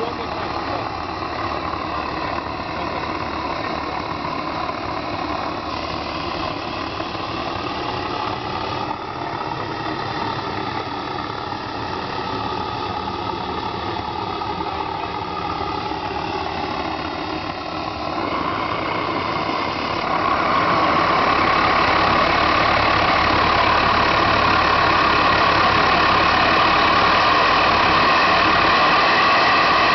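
Homemade propane-fired turbojet built from a turbocharger, running steadily with a rushing whine. About 18 to 20 seconds in it grows louder, with a strong high whoosh.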